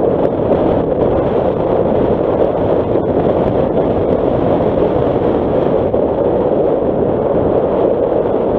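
Nissan Qashqai driving slowly on a gravel dirt track: a steady rumble of tyres on loose stones mixed with wind on the microphone, with a few faint ticks of stones.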